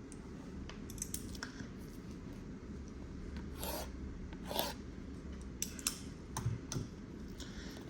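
Packaging being handled: light rubbing and small clicks, with two short scraping swishes a little under a second apart, around the middle.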